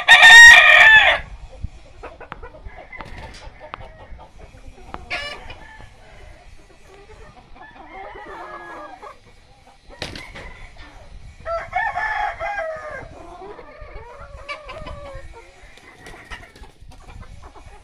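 A gamecock rooster crows loudly right at the start, and another crow comes about two-thirds of the way through. Quieter clucking and short calls come from the flock in between.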